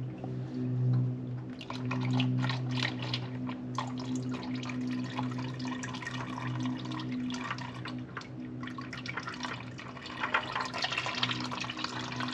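Old oil filter being twisted off with a claw-type removal tool: scattered clicks and scrapes, with oil dripping and trickling out as the filter loosens. A steady low hum runs underneath.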